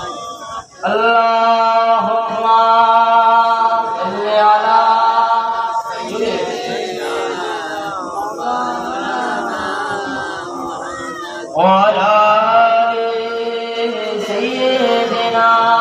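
A man's voice singing an unaccompanied devotional melody, holding long drawn-out notes with bending ornaments. The singing pauses briefly just under a second in and again at about 11.5 s.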